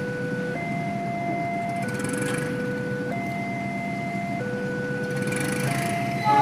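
Railway level-crossing warning alarm sounding from the crossing's loudspeaker: an electronic two-tone signal swapping between a lower and a higher note about every 1.3 seconds, over a steady low rumble of engines. A short horn blast sounds right at the end.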